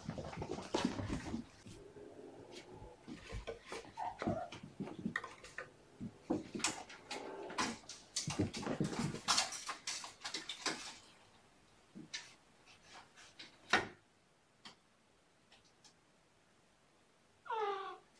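Kittens scampering and playing with toys: a busy run of scratches, rustles and clatters that dies down after about eleven seconds to a few scattered ticks. Near the end comes one short cat meow.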